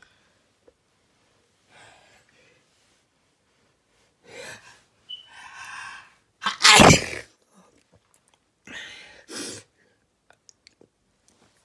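A person sneezing: gasping in-breaths build up over about two seconds, then one loud sneeze a little past halfway, followed by two shorter breathy sounds.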